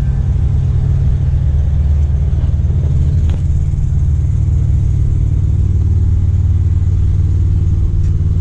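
Semi truck's diesel engine idling with a steady, low rumble.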